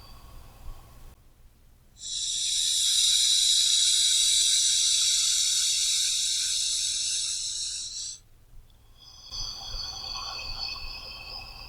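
A person's slow, deep breath: one loud, airy rush of breath that starts about two seconds in and lasts about six seconds. Quieter passages with faint, steady high tones come before and after it.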